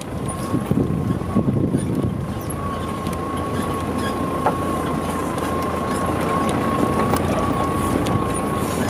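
Vehicle driving slowly over a rough dirt mountain track, heard from inside: engine running with a dense rumble, scattered knocks and rattles, and a steady whine held at one pitch.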